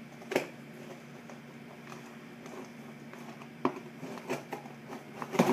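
Scattered clicks, knocks and scrapes of hands working at the plastic strapping band around a cardboard shipping box, trying to get it off. The sharpest knocks come about half a second in and just before the end.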